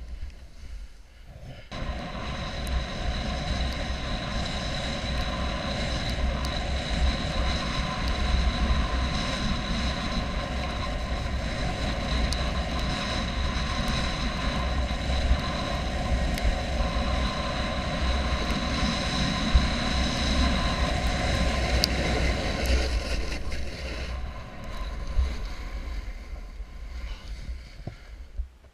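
Wind rushing over the microphone while snowboarding fast through deep powder, mixed with the hiss of the board sliding on snow. It starts suddenly about two seconds in, holds steady with a deep buffeting rumble, and eases off over the last few seconds.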